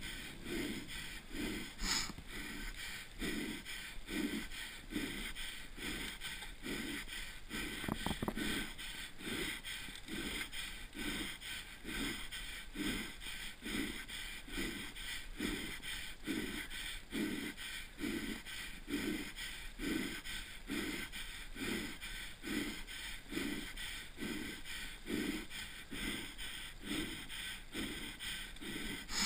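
A mountain-bike racer's heavy, rhythmic breathing, about one breath a second, heard close over a steady hiss of wind and tyre noise.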